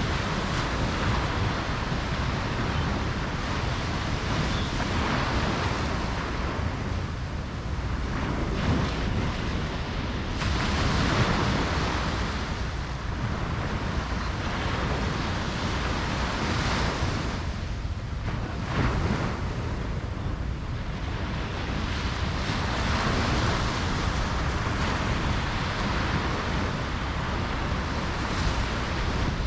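Ocean waves breaking and washing up a beach, the surf swelling and fading every five or six seconds.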